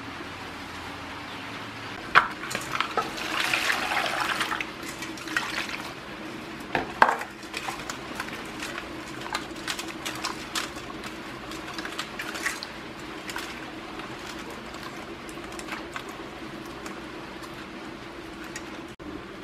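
Water splashing and sloshing in a metal bowl as green onions are washed by hand, with knocks and clinks against the bowl. The loudest splashes come in the first several seconds, over a steady low hum.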